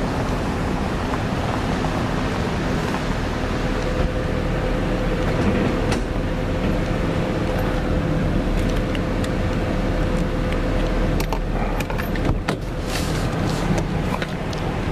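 Vehicle engine and road noise heard from inside a slowly moving vehicle with the window open: a steady rumble with a faint, even whine. A few sharp clicks or knocks come a couple of seconds before the end.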